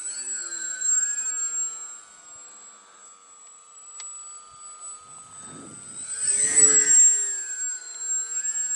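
Electric RC model plane's Graupner Ultra 2812 brushless motor and APC 7x5 propeller whining in flight, its pitch bending up and down as the model passes and turns. It swells about a second in, and loudest about six and a half seconds in as it passes closest.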